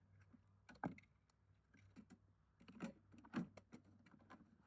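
Faint clicks and light knocks of plastic vacuum attachments being handled, against near-quiet room tone. A few separate taps, the loudest about a second in and about three and a half seconds in.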